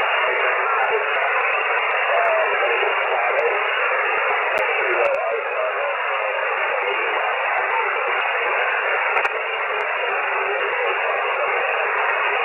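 Amateur radio receiver on single-sideband putting out steady static hiss with no station coming through. The hiss is squeezed into the narrow voice band of the receiver's filter, which gives it a thin, telephone-like sound.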